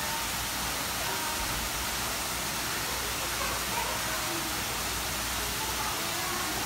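Steady rushing of an indoor waterfall cascading down an artificial rock wall, with faint distant voices now and then.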